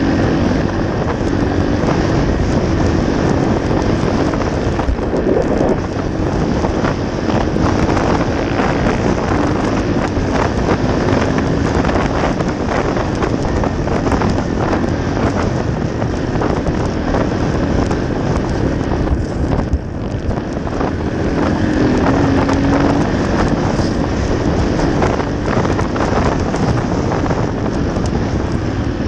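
Dirt bike engine running while riding along a gravel track, heavily covered by wind noise on the microphone, with frequent knocks and rattles from the rough ground.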